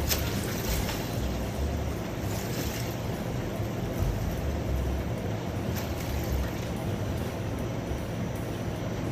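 Steady low rumble and hiss of background machinery, with a few faint light knocks or splashes.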